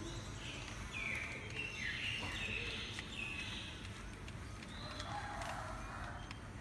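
Motors of a radio-controlled long-reach CAT 320D model excavator whining as the long arm swings out and lowers. The high whine holds a pitch and then jumps to another pitch several times over about three seconds, over a steady low hum.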